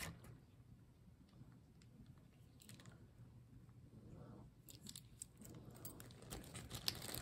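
Mostly near silence, with a few faint clicks and light taps in the second half as small metal bow brooches with glass orbs are picked up and set down on a cloth-covered table.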